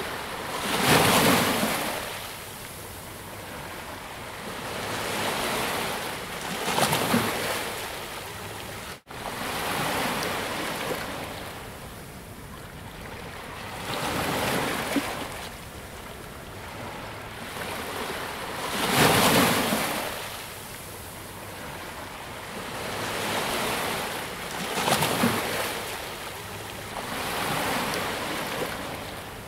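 Ocean waves breaking and washing onto the shore, in slow surges that swell and fade about every six seconds. The sound cuts out for a split second about nine seconds in.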